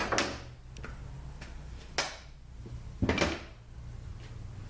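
Sharp metal knocks and clatter of hand tools working on a bare automatic transmission case, three main strikes about a second apart, over a low steady hum.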